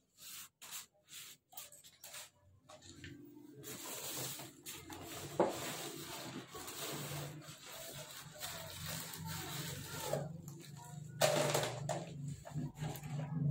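Plastic bags and a woven plastic sack rustling and crinkling as they are pulled open and handled, with a few sharper crackles. A low, steady hum comes in underneath about halfway through.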